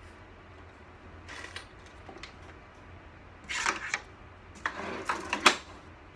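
Plastic and metal parts of a medical computer cart's tilting work surface clicking and rattling as they are handled and moved, in several short bursts that grow louder, with the sharpest clack about five and a half seconds in.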